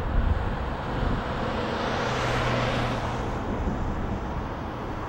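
Outdoor traffic noise: a steady rush of passing vehicles that swells about two seconds in, with a low engine hum under it.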